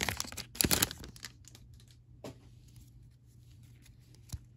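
Foil trading-card pack wrapper crinkling and tearing as it is peeled open and the cards are slid out, loudest in the first second, then a few faint light taps from handling the cards.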